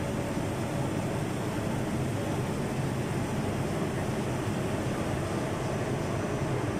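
Six-colour stack-type high-speed flexographic printing press running, its rollers carrying a printed paper web: a steady mechanical running noise that keeps an even level throughout.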